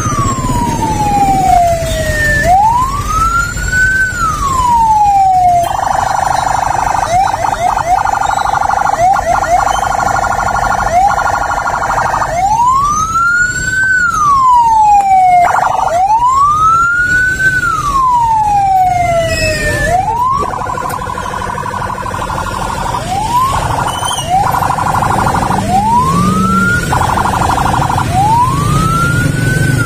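Ambulance siren wailing: a tone that rises and falls slowly, about three to four seconds per sweep. It switches to a rapid yelp for several seconds about six seconds in, and again from about twenty seconds. A low rumble of vehicle engines sits underneath.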